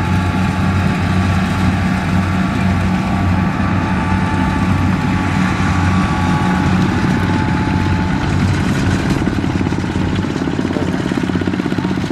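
Single-cylinder diesel engine of a Kubota RT155 walking tractor running steadily under load, a rapid even chug, its firing beat coming through more plainly near the end.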